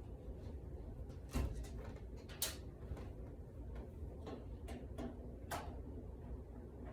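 Scattered clicks and light knocks of a screwdriver and sheet metal as the Phillips screws are taken out at the back of a clothes dryer's top panel, the sharpest knock about a second and a half in.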